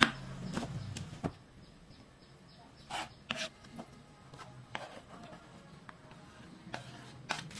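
Scattered knocks and taps of a kitchen knife on a wooden cutting board as garlic is chopped and pushed off into a plastic bowl, about a dozen separate strokes with pauses between.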